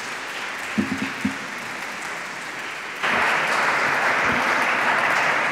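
Audience applauding, the clapping swelling clearly louder about three seconds in, with a few low knocks about a second in.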